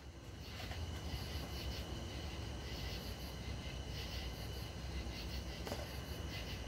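A police radio channel keyed open with no one speaking, heard through a scanner: a steady low rumble of a moving patrol car under a faint radio hiss, coming up in the first second.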